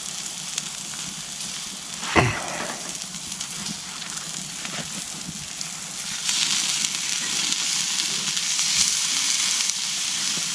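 Steak sizzling over a campfire, a steady hiss that grows louder and brighter about six seconds in. A short voice sound about two seconds in.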